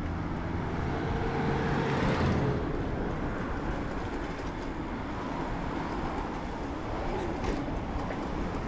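Steady riding noise from an Intense M6 mountain bike on a sidewalk: wind on the helmet camera and tyre hum. A vehicle passes and is loudest about two seconds in.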